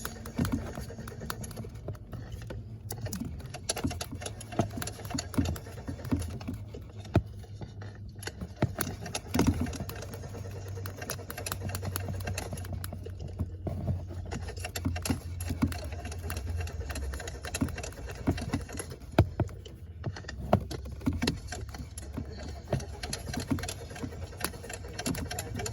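A car engine cranking on the starter without catching, over and over: a steady low rumble with many sharp clicks, as the car fails to start.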